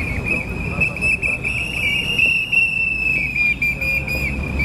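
A whistle blown without a break: one high-pitched held tone that wavers, and in the last second or so breaks into quick pulses, about five a second.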